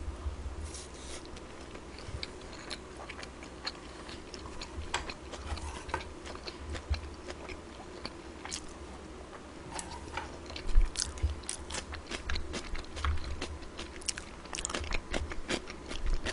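Close-miked chewing and biting of food, with wet mouth clicks and some crunches that come thicker in the second half.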